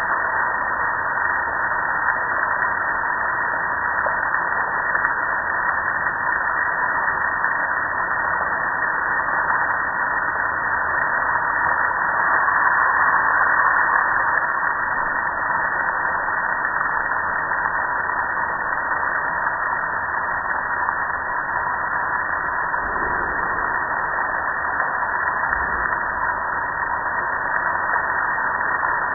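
Steady rush of soapy water streaming down over a gas grill and splashing below.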